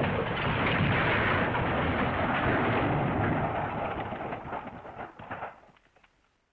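The MGM cartoon 'elephant smash' crash sound effect: a loud, dense crashing and clattering of smashed debris that holds for a few seconds, then fades away in scattered clatters near the end.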